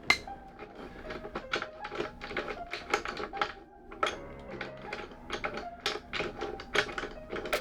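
Rapid, irregular clicking and tapping, several sharp clicks a second, over quiet music.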